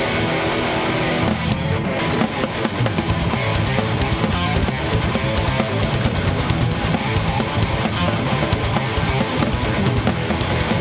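Instrumental passage of a thrashcore song: a distorted electric guitar riff with bass and drums, the drums and cymbals filling out the sound about two seconds in, with no vocals.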